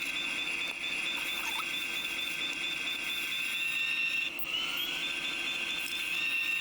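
Kabolite 970 all-electric RC excavator's electric motors and servos whining at a steady high pitch. A little past four seconds the whine briefly dips and a lower tone glides upward as a motor changes speed.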